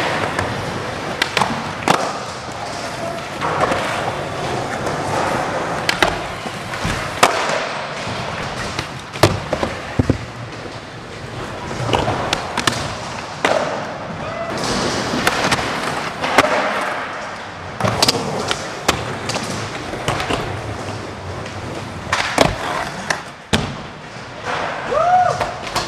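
Skateboard wheels rolling on the park's floor and wooden ramps, with many sharp board clacks and landing slaps scattered throughout.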